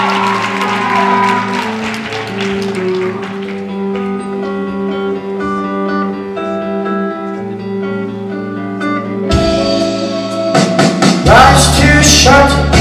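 Live rock band playing a song's intro: picked guitar notes over held chords, with crowd cheering dying away in the first second. About nine seconds in, the full band comes in louder and heavier, and lead vocals start near the end.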